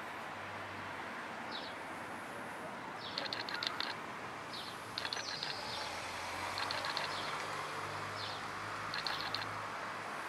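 Small birds chirping in short, quick bursts every second or two over steady outdoor background noise, with a low steady hum joining about halfway through.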